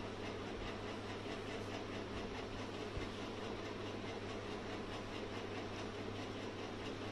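Steady low hum with an even hiss of background noise, unchanging throughout.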